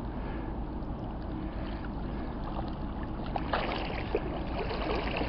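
Low wind rumble on the microphone over gentle moving water, with splashing from about three and a half seconds in as a hooked fish thrashes at the surface.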